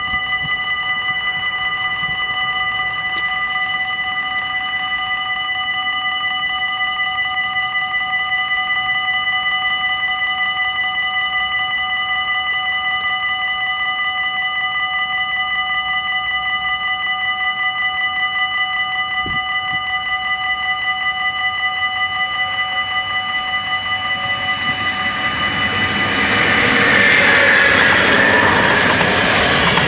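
Dutch level-crossing bells ringing continuously at an automatic half-barrier crossing. About 24 seconds in, an approaching ICMm electric intercity train grows louder and runs over the crossing near the end, its wheels and rumble drowning the bells.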